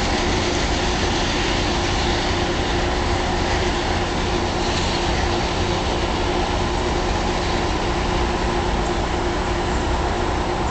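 Amtrak Southwest Chief passenger train pulling away under power: a steady hum from its P42 diesel locomotives and rolling wheels, with a few steady low tones in it.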